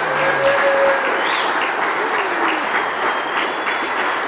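Wedding guests clapping and cheering, a dense, steady applause with a few cheering voices rising over it.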